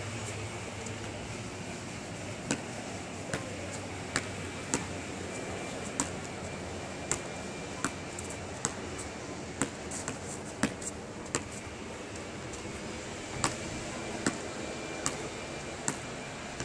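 Basketball bouncing on an outdoor asphalt court: sharp thuds at uneven spacing, about one a second, over a steady outdoor hum.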